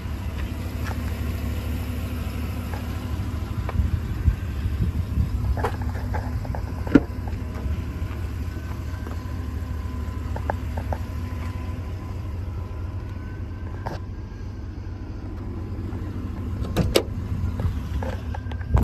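Low, steady rumble of a running vehicle engine, with scattered clicks and knocks and a faint tone slowly rising and falling in the background.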